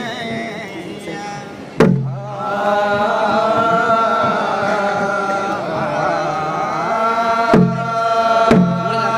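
Thottam ritual song chanted in long, held, wavering notes, with loud drum strokes: a single sharp stroke about two seconds in, then three more spaced about a second apart near the end.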